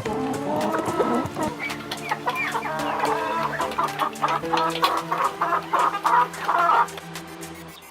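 Chickens clucking: many short, quick calls, several a second, that fade out near the end.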